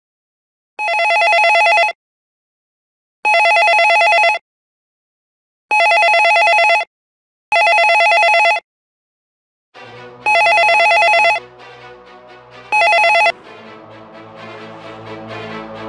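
Corded landline telephone ringing: six electronic rings of about a second each, with pauses between them. The last ring cuts off short as the receiver is picked up.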